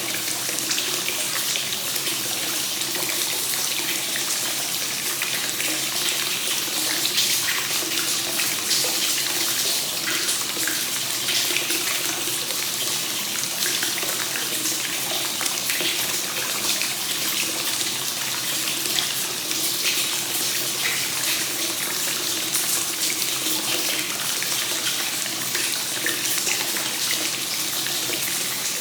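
Hot spring water flowing continuously into a bath and splashing steadily, a free-flowing (kakenagashi) onsen tub.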